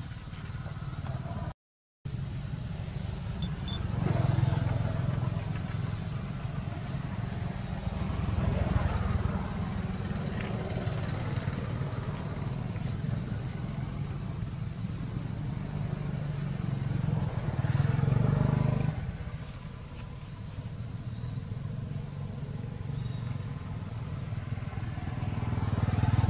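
Low engine hum of passing motor traffic. It swells and fades about four times as vehicles go by. The sound cuts out completely for a moment about two seconds in.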